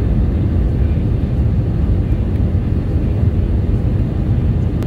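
Steady low rumble of an Airbus A321's engines and rushing air heard inside the passenger cabin during descent on approach to landing.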